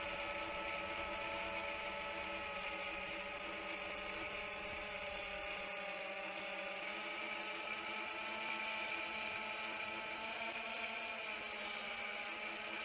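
Quadcopter motors and propellers running with a steady whine: several tones that drift slightly in pitch over an even hiss. The low rumble underneath drops away about six seconds in.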